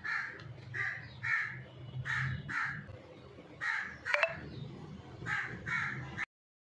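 Repeated short bird calls, about eight of them, often in pairs, over a faint low hum. A sharp click comes a little after four seconds in, and the sound stops suddenly near the end.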